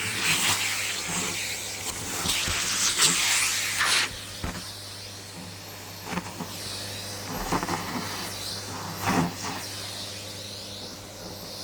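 Vacuum cleaner running, drawn over a cat's fur, with a steady hum and an airy hiss. It is louder for about the first four seconds, then quieter, with a few brief rustles.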